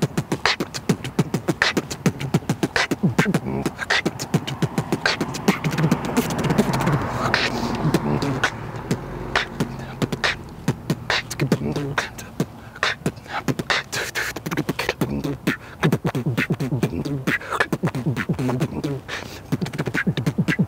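A man beatboxing: fast mouth-made kick, snare and click sounds in a quick, dense rhythm, with a few sung or hummed notes mixed in.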